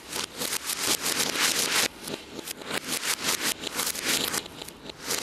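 Fountain firework's hissing, crackling spray of sparks played backwards: a rapid string of spurts, several a second, each swelling and then cutting off abruptly.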